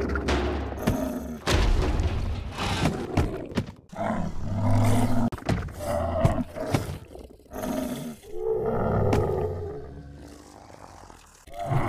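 A series of deep, growling animal roars, one after another, each a second or two long, fading down shortly before the end; a dubbed creature sound effect.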